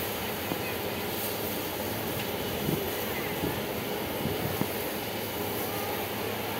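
Steady outdoor rumble with a faint murmur of voices and a few small knocks.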